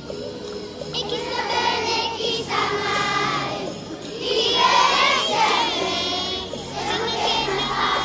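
Large children's choir singing a Christmas carol over music, with jingle bells ringing in a steady beat.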